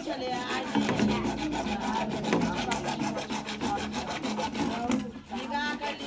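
A bare hacksaw blade, held in the hand, rasping in quick back-and-forth strokes against a PVC pipe.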